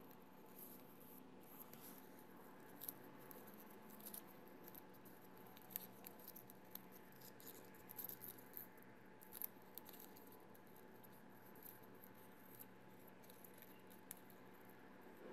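Faint rustling, crinkling and small clicks of folded origami paper being handled, scattered at irregular moments over a quiet, steady room hum.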